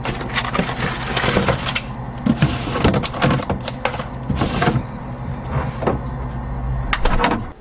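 Plastic food containers clattering and rustling as they are taken out of an open refrigerator, with close handling noise and many sharp clicks over a steady low hum.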